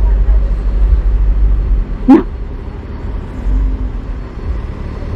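Uneven low rumble of outdoor street background noise, louder in the first couple of seconds and easing off after.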